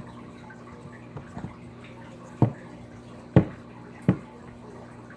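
Slime containers and slime being handled, with small clicks and three sharp knocks about a second apart.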